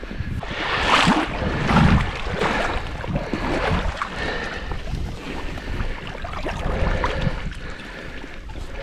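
Lake water sloshing and splashing, with scattered knocks, as dock sections are worked loose by hand in the shallows. It is loudest about one and two seconds in.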